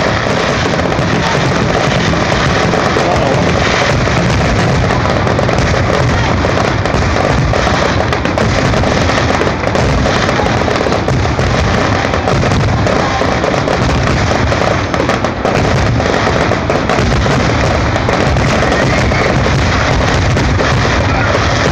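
Fireworks display with many aerial shells and comets going off in quick succession. The bangs and crackle run together into a loud, unbroken wash of noise with no gaps between bursts.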